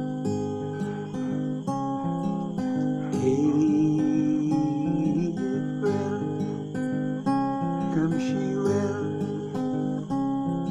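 Acoustic guitar with a capo, picked in a steady pattern of single ringing notes.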